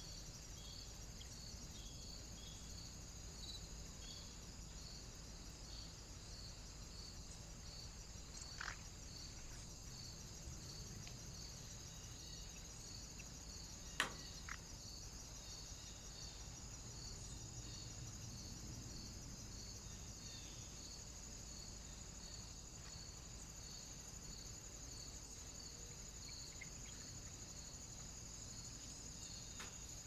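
Faint insects chirping: a steady high-pitched chirring with a regular pulse a little faster than once a second, over a low rumble. A short higher call sounds just before nine seconds in, and there is one sharp click about fourteen seconds in.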